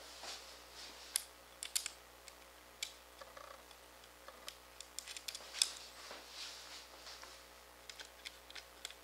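Small metal nuts and screws clicking and tapping against clear acrylic parts while nuts are started by hand on the screw shafts. Faint, irregular clicks, loudest a little over a second in and again around five to six seconds in.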